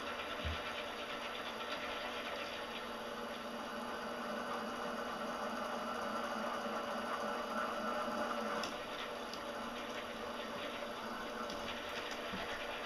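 Small bench mill's electric motor running steadily, spinning a drill bit in steel, a little louder for a couple of seconds past the middle with a short click near the end of that stretch.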